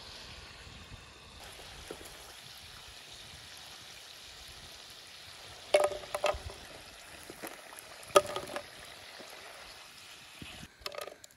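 Potato fries sizzling in hot oil in a cast iron pan, a steady hiss. A wooden spatula knocks sharply against the pan and wooden tray a few times, about six and eight seconds in and again near the end, as the fries are lifted out.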